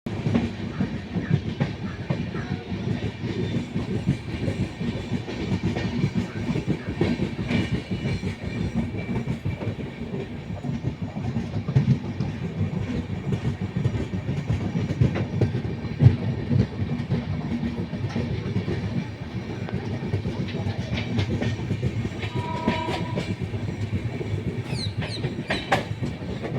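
Passenger express train rolling into a station: a steady low rumble with continuous clickety-clack of wheels over the rail joints. A brief steady tone sounds near the end.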